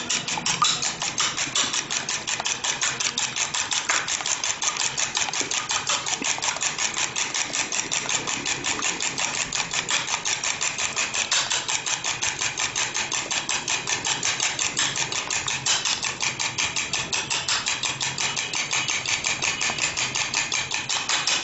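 A fork beating a raw egg in a bowl for an egg wash, its tines clicking against the bowl in a fast, even rhythm of several strokes a second.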